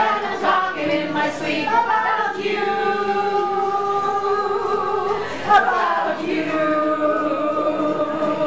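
A small group of people singing together unaccompanied, holding long notes, with a short break just past halfway.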